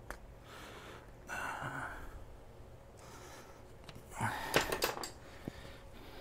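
A man's hard breaths of effort, two short loud exhales, one about a second and a half in and one after about four seconds, while he forces a rubber fork boot down over a motorcycle fork tube by hand; a few light clicks of handling come with the second.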